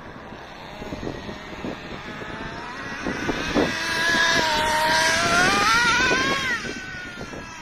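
Traxxas Nitro Slash RC truck's TRX 3.3 nitro engine running at high revs as the truck drives by. Its pitch climbs for a few seconds as it gets louder, then falls away sharply when the throttle comes off.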